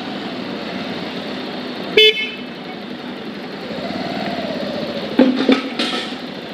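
Bajaj Avenger 160 Street's single-cylinder engine running at low speed as the bike rolls slowly. A short horn beep comes about two seconds in, and a few brief sharp sounds follow about five seconds in.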